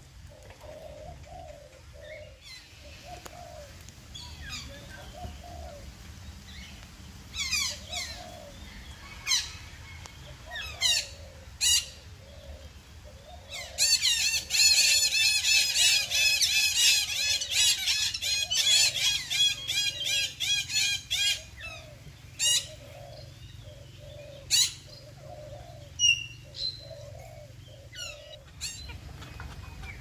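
Parakeets calling: scattered sharp, shrill single calls, and in the middle a loud run of rapid screeching chatter lasting about seven seconds. Soft, low dove cooing repeats throughout underneath.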